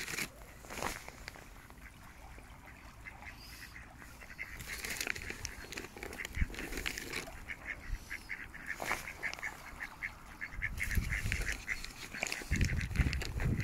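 Mallards quacking, with a long run of short, rapidly repeated calls through the middle. A low rumble comes in near the end.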